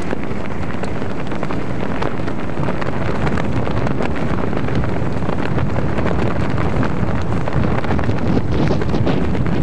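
Wind buffeting the camcorder's microphone: a loud, even rush with scattered crackles.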